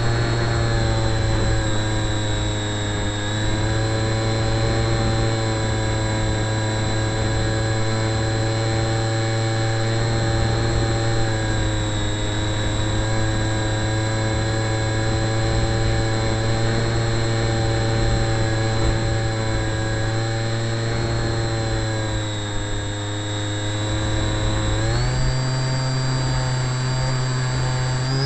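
Model aircraft motor and propeller heard from an onboard camera: a steady droning tone that dips and rises slightly with throttle, then steps up sharply in pitch about 25 seconds in.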